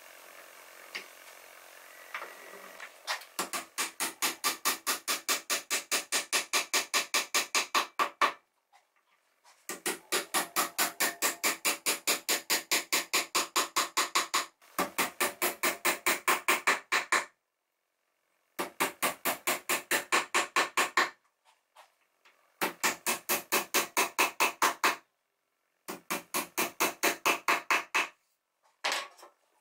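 A hand tool worked back and forth on wood in fast, even strokes, about five a second. The strokes come in several runs that break off abruptly.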